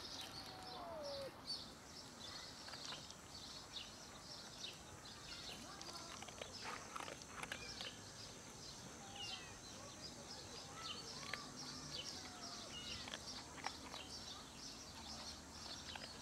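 Faint outdoor ambience of small birds chirping over and over, with a few short falling calls and a steady thin high tone.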